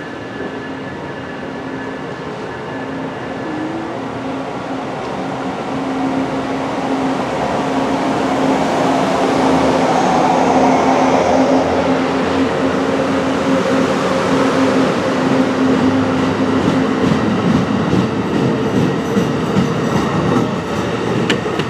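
Stainless-steel Amtrak passenger cars rolling past close by as the departing train picks up speed. The wheel and rail noise grows steadily louder over a steady hum, and faint rhythmic clicks of wheels over rail joints come near the end.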